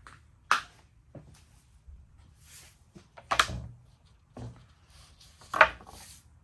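Three sharp knocks, with brief scraping and rustling between them, from the knife and test materials being handled.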